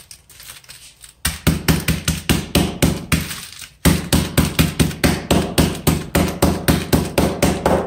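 A packet of Oreo biscuits being crushed with a rolling pin on a counter: rapid repeated blows, about five a second, with a brief pause about halfway.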